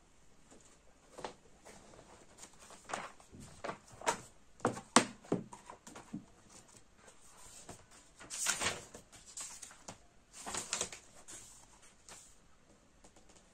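Paperback books handled on a desk: a series of light knocks and taps as they are picked up, set down and shuffled, then two brushing swishes of paper as a book's cover and pages are slid and opened.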